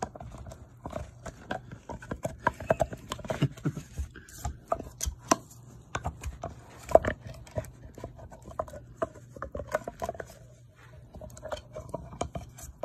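A pit bull gnawing a hard, hollow chew, his teeth clicking and scraping on it in irregular bursts, with one louder crack about seven seconds in.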